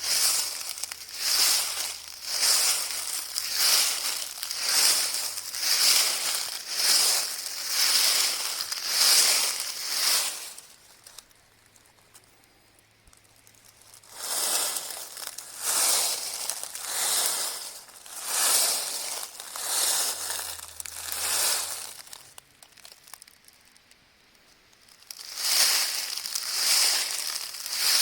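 Footsteps crunching through dry fallen autumn leaves at a steady walking pace, about three steps every two seconds. The steps stop twice for a few seconds, after about ten seconds and again after about twenty-two.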